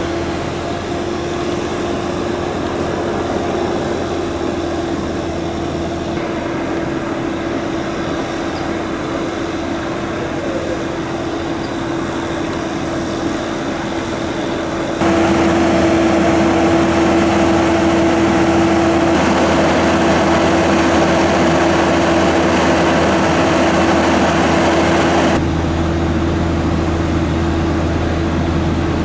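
Fire engine's diesel engine and pump running steadily to supply charged hose lines: a constant droning hum with one steady tone. It gets louder abruptly about halfway through and drops back a little near the end.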